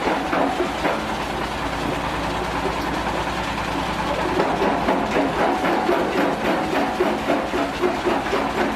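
Stone crusher machine running: a steady motor hum under a rapid, uneven clatter, several knocks a second.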